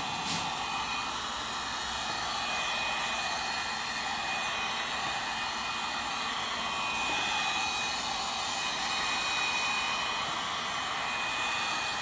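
Handheld hot-air blower running steadily, a rushing fan with a faint high whine, as it blows warm air over a damp leather cushion to dry it after cleaning.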